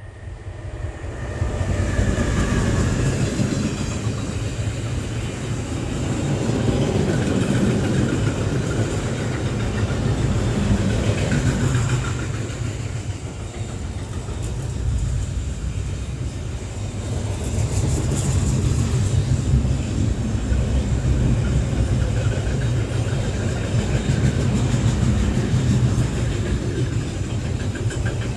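A long train passing close by: a steady rumble of wheels on rails that swells up over the first two seconds and then runs on unbroken.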